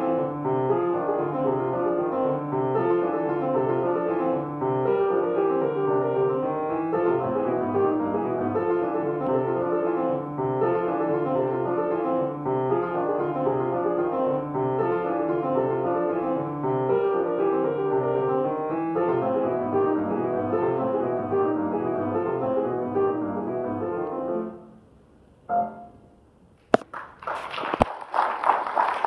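Grand piano playing a jazz piece over a repeating bass figure; about 25 seconds in the playing stops, with one last short chord. A couple of seconds later, applause breaks out.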